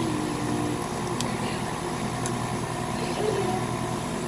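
Engine idling steadily: a low, even hum with a regular pulse.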